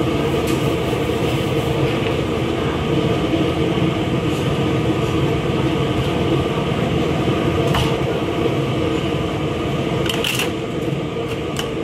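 Steady, loud background roar of a busy hawker-stall kitchen, with a few sharp knocks about eight and ten seconds in.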